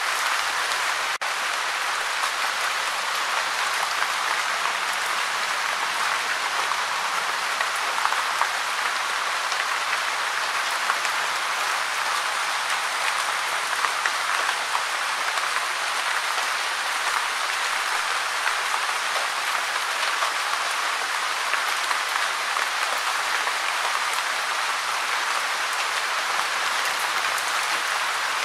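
Steady gentle rain falling, an even, unbroken hiss of many drops.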